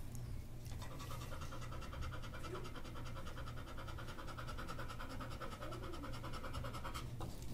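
A dog panting rapidly and evenly two days after abdominal surgery. It starts about a second in and stops shortly before the end.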